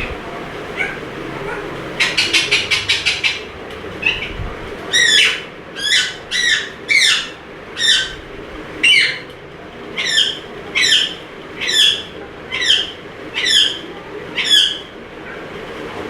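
Indian ringneck parakeet calling: a quick burst of about ten short chattering notes, then a run of about a dozen screeches, each falling in pitch, coming a little under a second apart.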